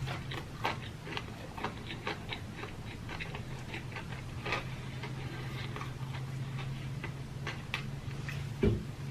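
A person chewing food close to the microphone: a run of soft, irregular wet mouth clicks and smacks, over a steady low hum, with a slightly louder knock near the end.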